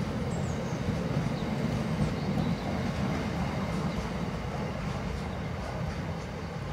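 Stone-laden open box wagons of a freight train rolling past on the rails, a steady rumble that eases off a little near the end as the last wagon draws away.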